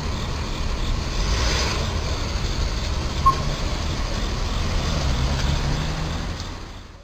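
Road traffic heard through a roadside camera's microphone: a steady low rumble of vehicle engines, with a car driving across about a second and a half in and a short beep about three seconds in. The sound fades out at the end.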